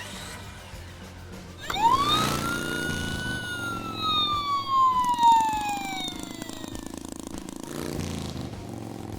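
A single siren wail over background music: it rises quickly about two seconds in, then falls slowly over about five seconds.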